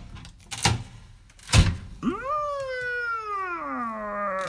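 Two short knocks of things being handled, then a long wordless vocal sound from about two seconds in, its pitch jumping up and then sliding slowly down over about two and a half seconds.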